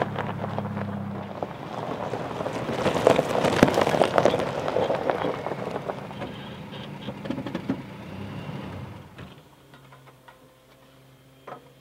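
Toyota Tacoma pickup driving on a dirt and gravel road: engine running with tyres crunching over the gravel, loudest about three to four seconds in, then fading away to a quieter steady hum.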